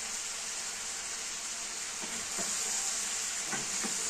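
Cubed potatoes and sausages sizzling steadily in hot ghee and oil in a pan, with a wooden spoon knocking against the pan a few times in the second half as the food is stirred.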